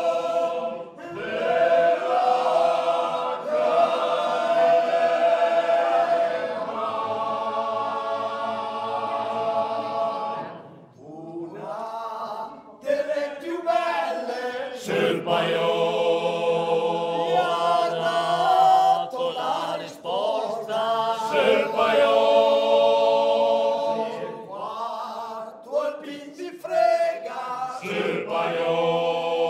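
Small group of men singing unaccompanied folk polyphony in several parts, long phrases held on sustained chords. The singing breaks off briefly about eleven seconds in and again between phrases near the end.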